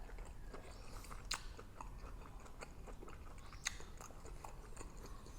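A person chewing and biting into grilled pork neck salad, with faint, scattered mouth clicks and smacks.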